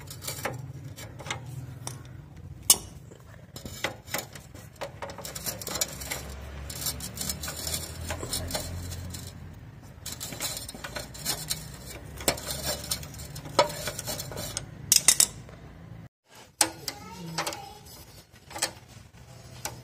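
A socket wrench ratcheting in runs of quick clicks, with metal clinks of the tool, as the 12 mm bolt on a motorcycle's rear drum-brake rod is undone.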